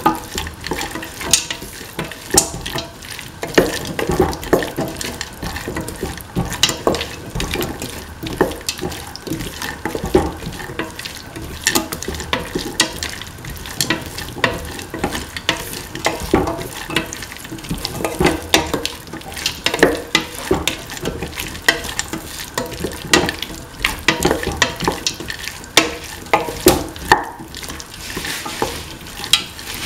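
Metal spatula scraping and knocking against a metal pan in irregular strokes, stirring diced winter melon, tomato and green peas being sautéed. A light sizzle runs under the strokes.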